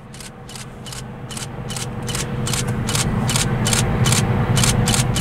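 Freight-train diesel locomotives rumbling under power, growing steadily louder, with a steady hum and a regular sharp clicking about four times a second.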